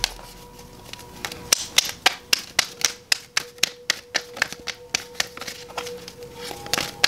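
Deck of tarot cards being shuffled by hand: a quick, irregular run of sharp card clicks and snaps, about four a second.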